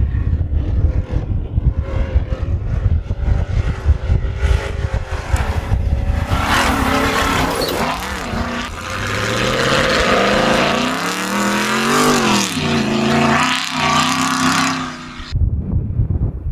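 Modified Ford Raptor with long-tube headers and a Corsa Xtreme exhaust, driven hard: a low exhaust rumble at first, then from about six seconds in the engine revs up and down a couple of times as it accelerates. The sound cuts off suddenly near the end.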